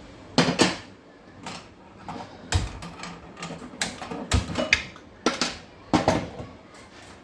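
Cookware and utensils being handled: about a dozen irregular knocks and clinks of metal pots and tools set down and moved about.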